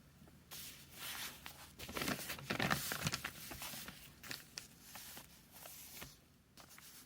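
Chinese calligraphy brush working on paper: a scratchy, rustling sound broken by small taps. It swells to its loudest about two to three seconds in, then eases off.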